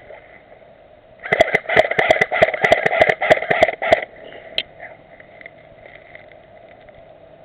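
Airsoft gun firing a rapid string of shots, about six a second, for under three seconds starting about a second in, with one more single shot shortly after.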